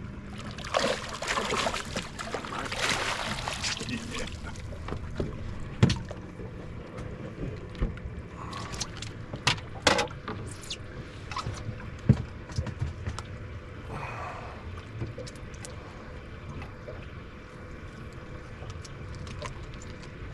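Water and boat noise aboard a small fishing boat: a few seconds of rushing, splash-like noise about a second in, then scattered sharp knocks against the boat over a steady low rumble.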